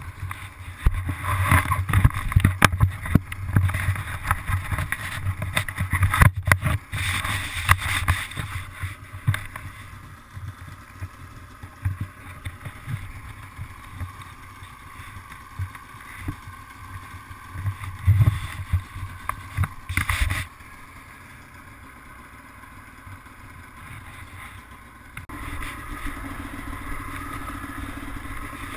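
Irregular knocking, clattering and rumbling of handling and wind on a helmet microphone, quieter in the middle. About 25 seconds in, a snowmobile's two-stroke engine begins a steady idle.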